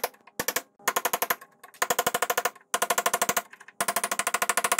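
Pneumatic air hammer driving a chisel bit into the old rubber-and-steel lower control arm bushing of a Mercedes W126 to chisel it out, with metal ringing. It fires in bursts of rapid blows, well over ten a second, with short pauses between.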